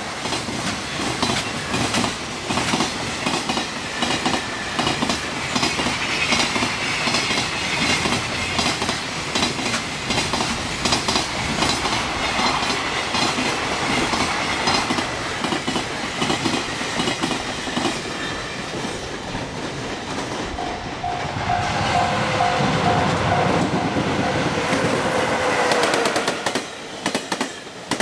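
Freight train wagons passing over rail joints, the wheels making a continuous, heavy clickety-clack. About three-quarters through, a short pulsing tone sounds over the clatter, and near the end the clatter drops in level.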